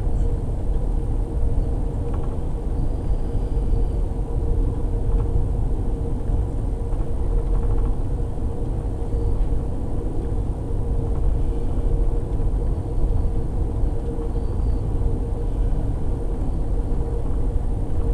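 Steady low rumble of a moving Amtrak passenger train heard from inside the car, with a constant hum.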